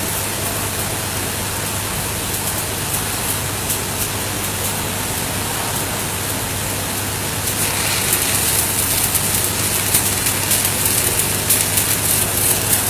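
Electric arc welding on a pipe branch connection: the arc crackles and sizzles steadily over a low hum. The crackle grows louder about seven and a half seconds in.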